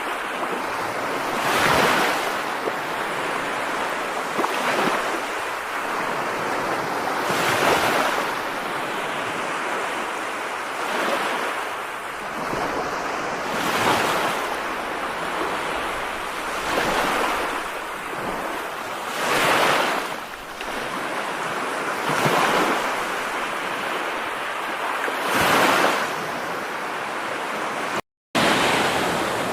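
Steady rushing noise of heavy rain, swelling and easing about every three seconds. It cuts out for an instant near the end.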